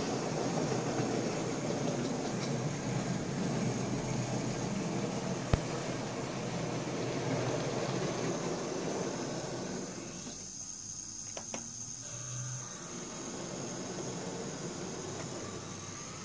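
OO gauge model locomotive running on the layout's track, a steady motor whirr and wheel rumble that dies away about ten seconds in. There is a single sharp click about five seconds in and a couple of faint clicks soon after the running stops.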